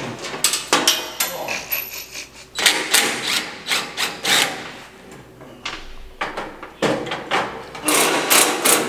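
Metal clanks, knocks and scraping as tools work on a Massey Ferguson 4880 tractor's sheet-metal side panel and it is pulled loose, with a louder scrape of the panel near the end.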